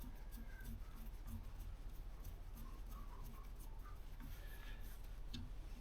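Faint, scattered small clicks and taps of hand work: wires being fitted into the terminals of an air compressor's replacement pressure switch.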